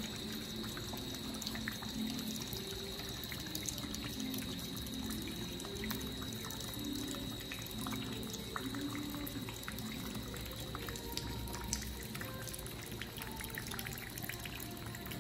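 Water falling in thin streams and drips from a theatre drip-effect bar, an overhead pipe with solenoid valves, splashing steadily with many small scattered ticks of drops. A faint steady high whine runs underneath.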